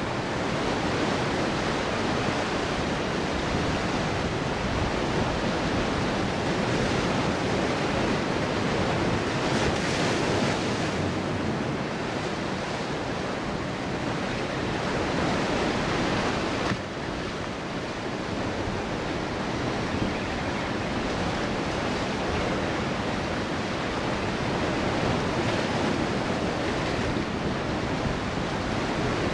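Ocean surf breaking and washing over shoreline rocks, a steady rushing wash, with wind on the microphone. The sound dips briefly about two-thirds of the way through.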